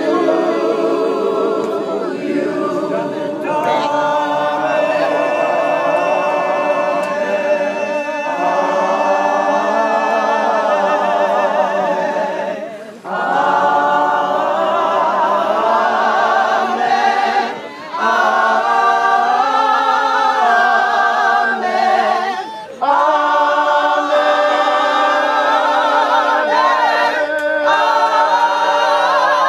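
A group of voices singing a gospel song a cappella, without instruments, pausing briefly between phrases three times.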